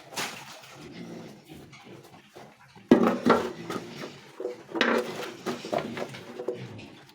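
Farm animals calling: faint calls at first, then a louder run of harsh calls from about three seconds in, with another loud stretch around five seconds.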